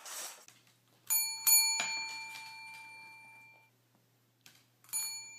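A small bell rung three times in quick succession about a second in, each strike ringing out for about two seconds, then rung once more near the end.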